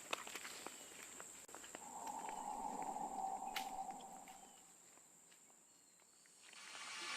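Faint, scattered footstep-like clicks over a steady high insect whine. The whine stops near the end, leaving near silence.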